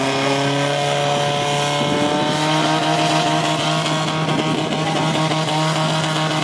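Portable fire pump engine running flat out at high revs, its pitch rising slightly and then holding steady as it drives water through the hoses to two nozzle jets.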